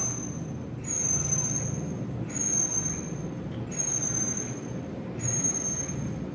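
A high, slightly falling mechanical squeal, repeating about every one and a half seconds, over a steady low hum.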